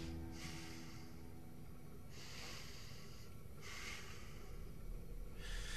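A person breathing audibly through the nose or mouth: four soft, hissing breaths, each lasting about a second, with short gaps between them.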